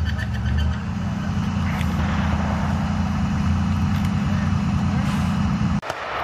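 Diesel engine of a USMC LAV-25 eight-wheeled light armored vehicle running with a steady low rumble, cutting off suddenly shortly before the end.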